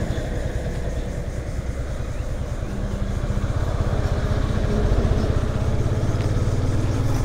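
Motorcycle engine running while riding, growing gradually louder through the second half.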